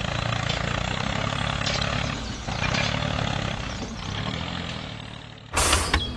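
Mini tractor's small motor running steadily, with a sudden loud burst of noise near the end.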